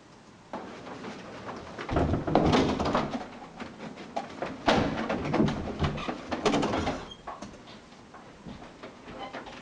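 Irregular knocks, thumps and rustling, like a door and objects being handled, loudest about two seconds in and again around five seconds, easing off near the end.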